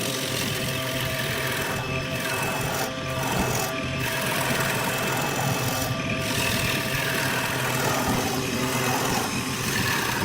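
Wood lathe running with a steady motor hum, while a turning tool scrapes and cuts the spinning wood, the cutting noise briefly easing a few times.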